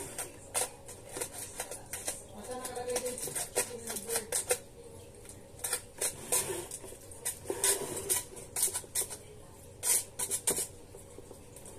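Cookware and dishes being handled on a kitchen countertop: a string of clinks, knocks and scrapes at irregular intervals.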